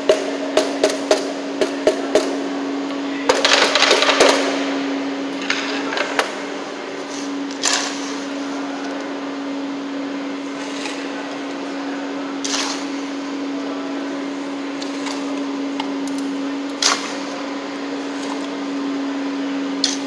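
A mallet taps the outside of a metal concrete unit-weight measure about eight times in quick succession, roughly three strikes a second, to settle the freshly rodded layer. A scoop then scrapes and dumps concrete, with a few scattered scrapes after, over a steady hum.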